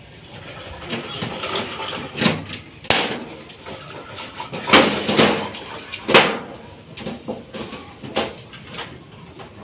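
Irregular sharp knocks and clatters of metal being worked by hand on a cotton candy machine's metal frame, about half a dozen spaced a second or so apart, some short and some dragging on for half a second.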